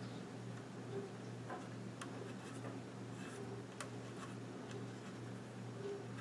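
Faint, scattered small clicks and taps of a metal nut being threaded by hand onto a 16mm projector's roller post, over a steady low hum.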